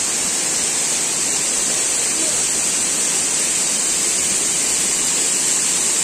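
Waterfall cascading down rocks: a steady, even rush of falling water.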